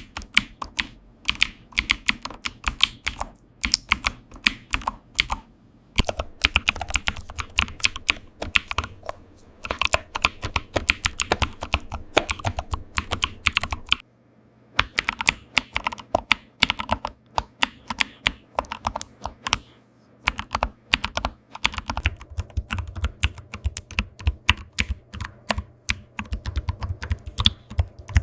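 Fast typing on a computer keyboard: a dense run of clicking keystrokes, broken by a brief pause about halfway through.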